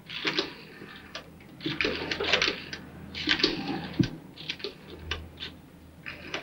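Rotary dial telephone being dialled: the dial is wound round and runs back several times, each return a short burst of mechanical clicks, with short pauses between digits.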